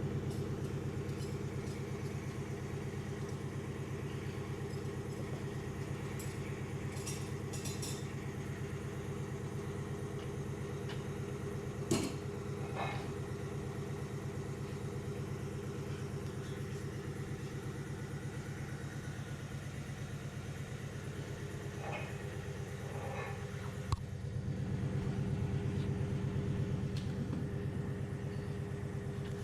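Porsche Cayenne engine idling steadily, with one sharp knock about twelve seconds in and a click near the 24-second mark, after which the engine note grows a little louder for a few seconds.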